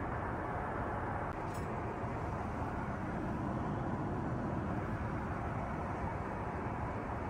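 Steady cabin noise of an Airbus A380 in flight: an even, low rushing sound with no breaks.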